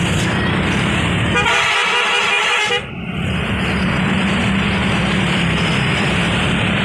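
A bus's multi-tone "telolet" musical horn in the Pakistani style sounds a rapidly pulsing, trilling burst about a second and a half in, lasting just over a second, over a steady low engine rumble.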